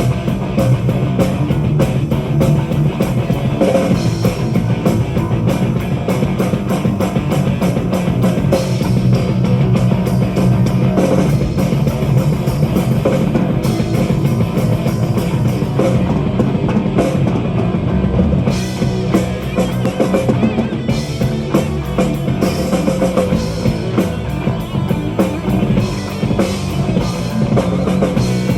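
Live metal band playing an instrumental passage: heavy distorted guitars, bass and a fast, busy drum kit, with no vocals.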